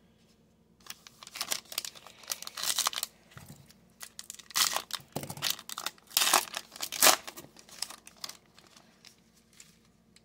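Foil trading-card pack wrapper crinkling and being torn open by hand, in two spells of crackling rustle, then quieter handling of the cards.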